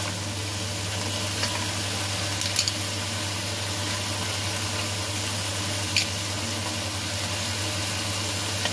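Frying pan sizzling steadily after stir-frying clams, with a few small pops, over a steady low hum.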